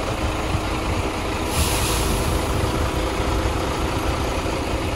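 Diesel engine of a truck-mounted concrete pump and mixer idling steadily with a low rumble. A short hiss comes about a second and a half in.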